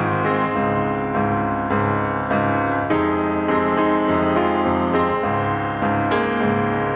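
Background music led by piano, with chords changing about every half second to second.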